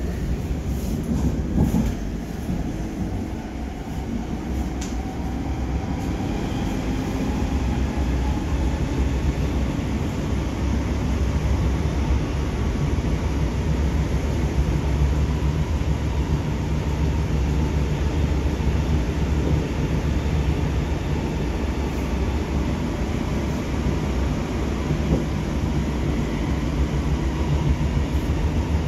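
Munich U-Bahn train running through a tunnel, heard from inside the passenger car as a steady low rumble. A faint whine rises in pitch over the first several seconds as the train gathers speed.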